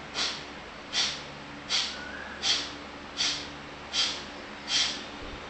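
Seven short, forceful exhalations through the right nostril, the left nostril held closed with the fingers, evenly paced at about one every three-quarters of a second. This is the rapid one-nostril breathing of a yoga pranayama exercise.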